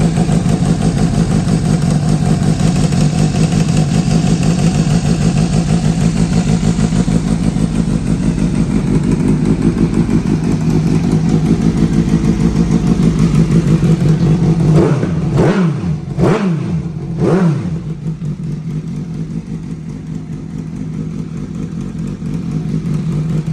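2017 Suzuki GSX-S750's inline-four engine idling through an aftermarket slip-on exhaust, blipped three times in quick succession about fifteen seconds in, each rev rising and dropping straight back, then settling to idle again.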